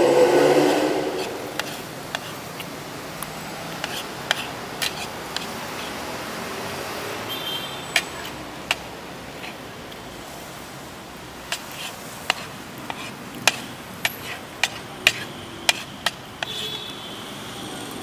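A vehicle passes loudly and fades over about the first second and a half. Then there is steady street background with a scatter of sharp clicks and clinks, thickest from about twelve seconds in.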